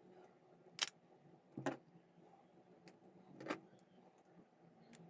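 A few light clicks and short scuffs of hands handling a smartphone and its freshly glued back cover: a sharp click a little under a second in, two brief scrapes, and another click at the end.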